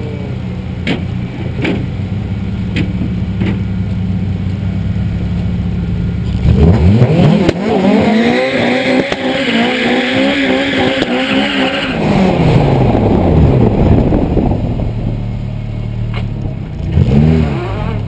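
Honda four-cylinder drag-race engine idling at the start line, with a few sharp clicks, then revving sharply about six seconds in and held at high revs for several seconds before the pitch sweeps back down. A short rev rise and fall comes near the end.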